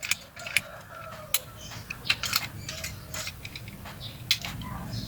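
Irregular small clicks and rattles of a Calya/Sigra seatbelt retractor's locking mechanism being worked by hand. The mechanism is jammed: its ball sensor sticks and the lock does not move freely.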